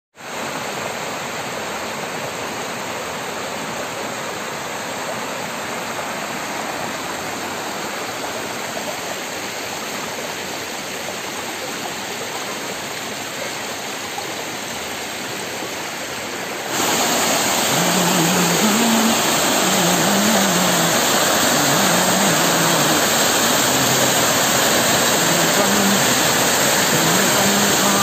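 Stream water rushing over rock slabs and a small waterfall, a steady hiss of flowing water. About seventeen seconds in it becomes abruptly louder and closer as the falling white water fills the sound.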